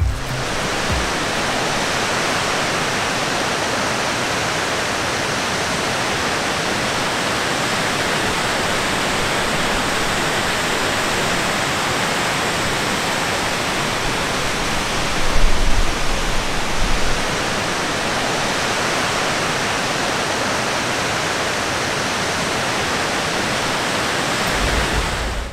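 Rushing mountain stream cascading over rocks: a steady, even roar of water, with a few low bumps about two-thirds of the way through.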